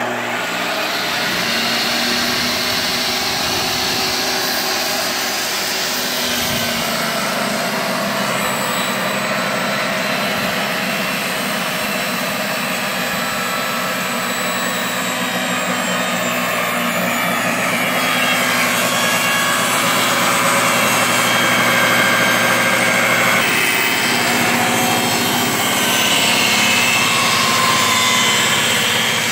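Porter-Cable jobsite table saw running and ripping a Douglas fir board lengthwise into thin strips, the blade cutting steadily along the fence.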